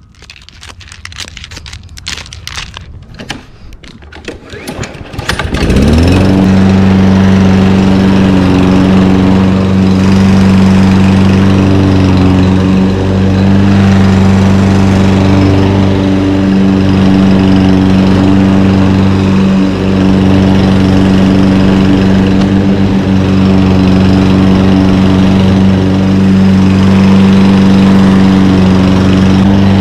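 Scraping and crackling of hands pulling weeds among loose river rocks, then about six seconds in a Toro Recycler gas lawn mower's engine starts, revs up quickly and runs steadily as the mower is pushed across dry grass.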